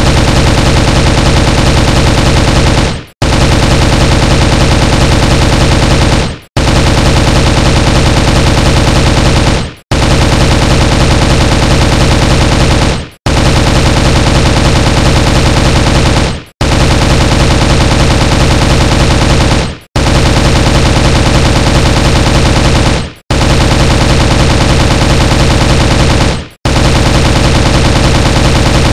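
M16 rifle gunfire sound effect: sustained automatic fire in runs of about three seconds, each ending with a quick fade and a brief gap, repeated nine times at an even pace.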